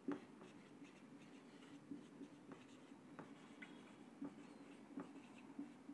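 Faint, irregular strokes and taps of a marker pen writing on a whiteboard.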